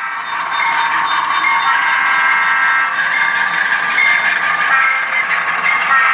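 HO scale model train running, with the onboard sound of its diesel locomotive playing through a small speaker: almost no bass, and a dense run of high tones that come and go.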